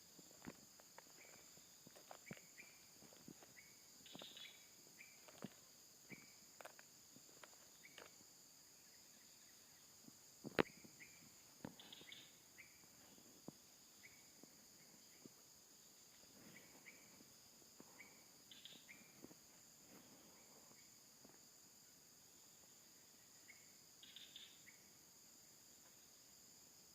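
Faint, steady high-pitched chorus of crickets or similar insects, with scattered soft clicks and rustles, one sharper click a little past the middle, and a few short chirps.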